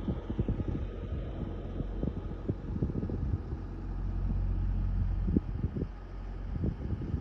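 A steady low rumble with many short, irregular low thumps through it.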